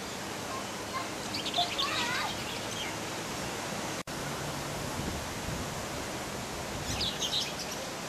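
Outdoor ambience: a steady hiss of background noise with small birds chirping in two short bursts, about a second in and again near the end. The sound drops out for an instant about four seconds in.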